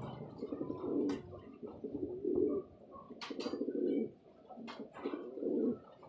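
Janssen-strain racing pigeons cooing, a string of rolling low coos one after another, with scattered sharp clicks and taps between them.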